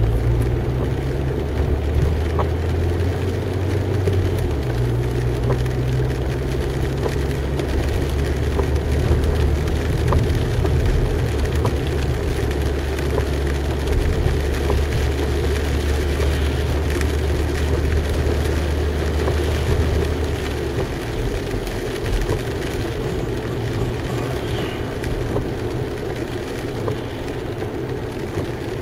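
A car driving on a wet road, heard from inside the cabin: a steady low engine drone over tyre and road noise. The engine drone fades away about twenty seconds in as the car slows.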